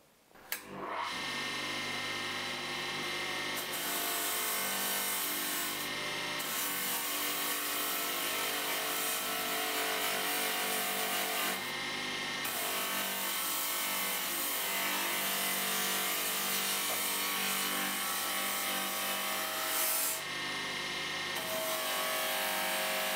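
Electric polishing machine running and buffing a blackened copper piece, a steady motor hum under a continuous abrasive rubbing hiss that eases off briefly a few times as the buff comes off the metal.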